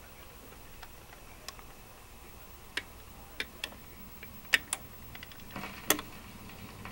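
Irregular clicks and pops over a faint hiss from a BSR turntable's stylus riding a quiet stretch of groove on a vinyl record. There are about a dozen sharp ticks, bunching together and getting louder near the end.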